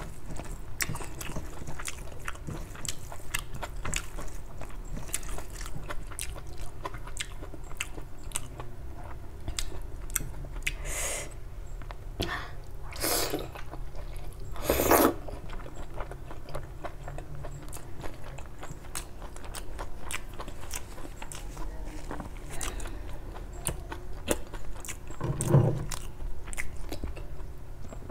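Close-up chewing of rice and egg curry eaten by hand, with a steady run of small wet mouth clicks and smacks. A few louder hissing bursts come around the middle, and a short louder low sound near the end.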